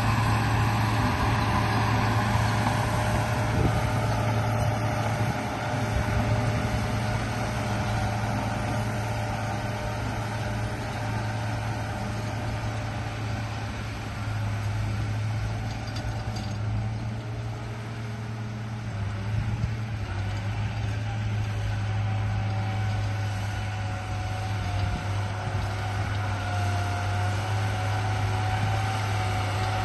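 Radio-controlled bulldozer running: a steady low mechanical hum with a whine above it. The whine rises a little in pitch and wavers in the second half.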